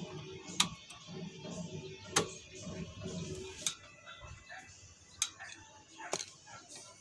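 Sharp metallic clicks and clinks, about five spread over several seconds, from hand tools and parts knocking against a Hyundai Starex's rear drum brake assembly as the shoes and wheel cylinder are fitted. Faint music plays in the background in the first half.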